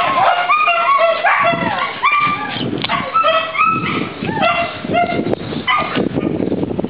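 A dog yipping and whining excitedly: a quick run of short, high-pitched cries that goes on for about six seconds.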